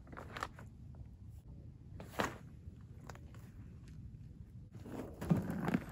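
Quiet handling noises with a single sharp click about two seconds in, then footsteps crunching on gravel near the end.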